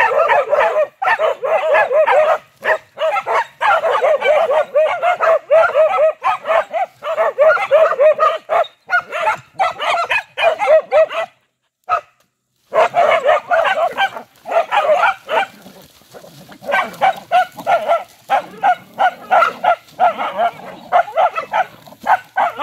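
Several small dogs barking rapidly and continuously, overlapping yaps, excited barking at a python they have cornered. The barking breaks off completely for about a second a little before halfway.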